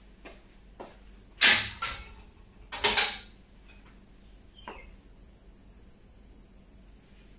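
A door being unlocked and opened: a few sharp clacks and rattles from its lock and latch in the first half, then a single lighter click.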